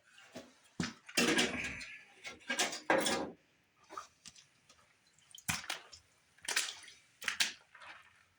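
Irregular wet handling noises among the parts of a flood-soaked furnace: about ten short splashing, dripping and squishing sounds, spread unevenly.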